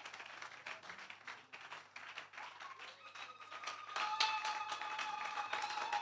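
An audience clapping in scattered, light handclaps. From about four seconds in, a steady high held tone joins and the sound grows a little louder.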